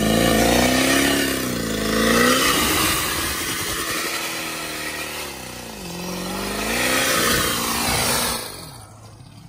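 Turbo-diesel pickup engine revved hard through a burnout with the rear tyres spinning. Its pitch climbs and drops back twice as it is shifted up, climbs a third time, then falls away near the end.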